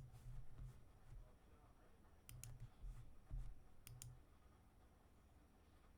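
Faint computer mouse clicks, coming in quick pairs about two and a half and four seconds in, over near silence with soft low thuds.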